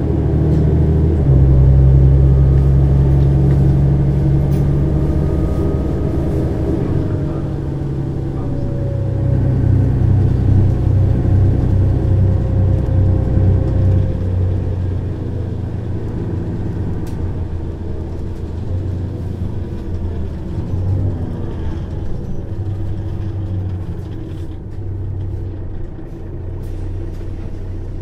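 Diesel engine of a 2004 Mercedes-Benz O 530 Citaro bus with a ZF automatic gearbox, running under way. Its note steps abruptly a few times in the first half, then runs lower and quieter.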